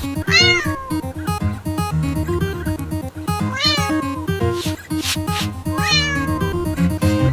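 A cat meowing three times, each meow rising and then falling in pitch, over background music.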